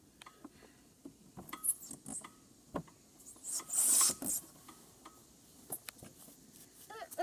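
Small knocks and clicks as a child climbs a plastic slide's ladder, then a rasping rub of skin and clothes on the plastic slide as he slides down about four seconds in.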